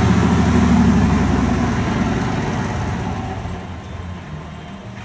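Heavy flatbed truck's diesel engine running, its low drone fading steadily over the few seconds.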